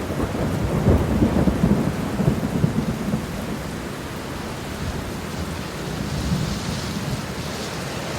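Steady rain falling, with a low rolling rumble of thunder over the first few seconds that eases into the even hiss of the rain.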